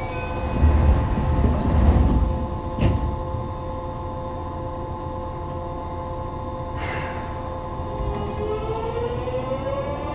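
Yokohama subway 3000A train's Mitsubishi GTO-VVVF traction equipment: a steady hum of several tones and a few thumps and clicks while the train stands. About eight seconds in, the inverter's whine starts and rises steadily in pitch as the train begins to pull away.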